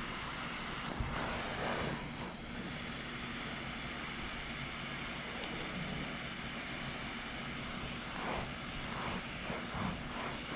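Steam cleaner running with a steady hum and hiss of steam venting from its glider tool on the carpet. Near the end come a few short rubbing sounds from a towel worked on the carpet.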